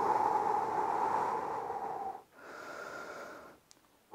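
A man breathing slowly and deeply through the mouth to catch his breath between exercise sets: a long, loud breath of about two seconds, a quieter breath of about a second, and another starting at the very end.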